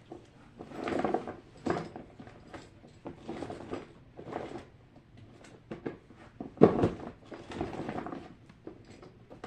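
Small plastic and silicone fidget toys (mini pop-its and pop-it bracelets) being rummaged through and handled, with irregular rattling, rustling and clacks, and one sharper knock about two-thirds of the way through.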